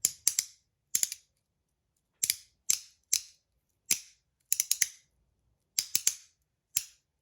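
Handheld haptic fidget slider being snapped back and forth: about a dozen sharp, bright clicks at irregular intervals, some in quick pairs.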